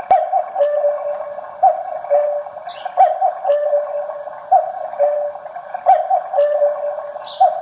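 Black Forest cuckoo clock calling, its bellows pipes sounding a falling two-note "cuckoo" about every second and a half, with the clock's ticking underneath.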